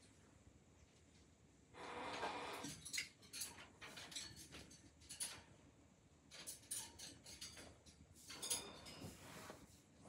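Faint metallic clinking and rattling of a parrot cage and its hanging toys as the birds climb and move about. Two louder stretches of rustling come about two seconds in and near the end.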